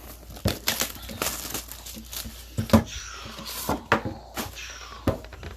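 Hands opening a sealed box of trading cards: irregular clicks, taps and crinkling of wrapping, with one sharper knock near the middle.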